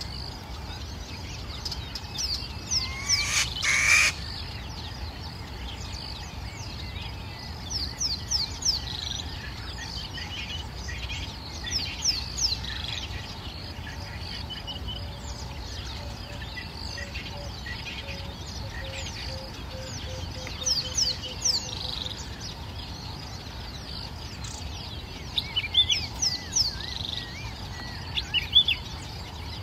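Wild birds chirping in clusters every few seconds, sharp high notes that sweep downward, with a louder burst about three to four seconds in, over a steady low background hum.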